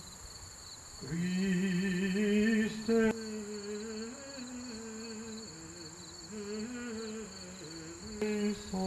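A small group of voices carrying a slow hymn tune in long held notes, starting about a second in, over a steady high-pitched buzz.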